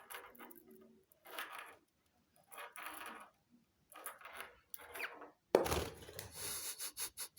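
Budgerigar playing with a walnut: the hard shell scrapes and rattles against a surface in short bursts, with a louder knock about five and a half seconds in.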